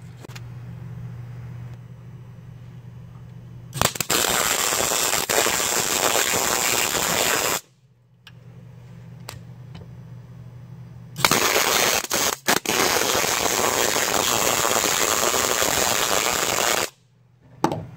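Arc welder crackling through two long welds of about four and six seconds, each cutting off sharply. A 5/8-inch nut is being welded onto the head of a seized, rusted T50 Torx truck bed bolt so that it can be turned out. A steady low hum fills the pauses between the welds.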